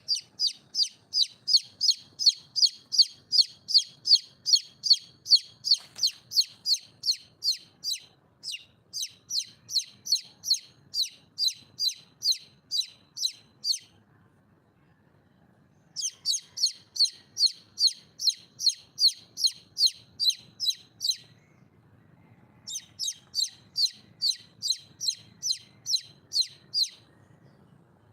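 Red junglefowl hen calling for a mate: a quick series of high, evenly repeated notes, about three to four a second, in four runs separated by short pauses.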